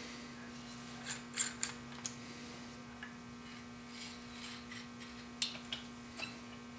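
Light metallic clicks and clinks, a few at a time, as a chisel is fitted and clamped in a General honing jig, over a faint steady hum.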